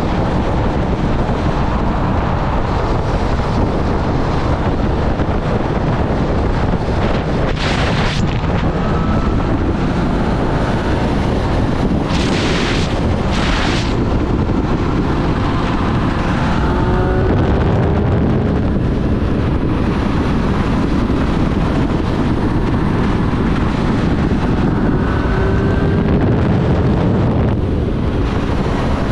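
Triumph Street Triple 765 RS inline-three engine running under way, mostly buried under heavy wind noise on the microphone. Its note rises twice, in the middle and near the end, as the bike accelerates, with a couple of brief rushes of noise before that.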